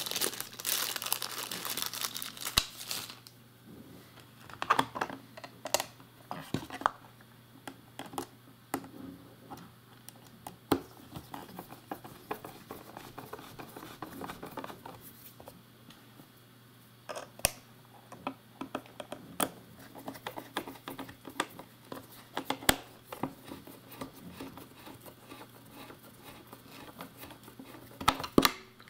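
Crinkling rustle for the first few seconds, then scattered clicks and taps of a screwdriver driving small wood screws into a 3D-printed plastic enclosure lid, with a faint steady low hum underneath.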